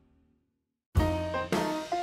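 Background jazz music: the previous passage dies away into a moment of complete silence, then the music starts again sharply about a second in, with drums and held horn-like notes.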